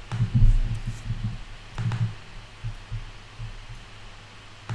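Computer mouse clicking twice, about two seconds apart, while the software is switched to a monthly chart, over irregular low, dull thuds.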